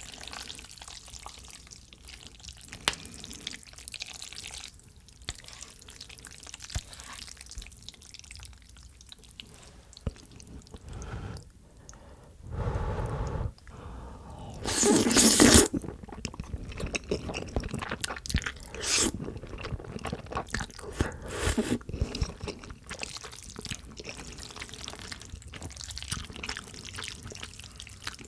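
Chopsticks stirring and lifting sauce-coated jajangmyeon noodles, making wet, sticky sounds. About halfway through comes a long, loud slurp of a mouthful of noodles, followed by chewing.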